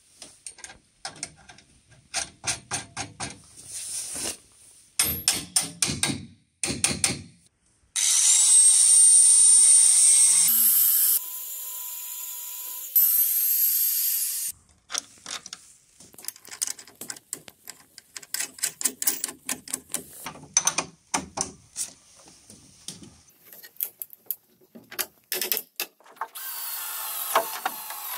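Electric drill driving screws into a bamboo column: the motor whines loudly for about six seconds starting about eight seconds in, dropping to a lower, quieter pitch partway through and speeding up again. Before and after, runs of rapid clicking and rattling from the tool and screws, and a steadier whir begins near the end.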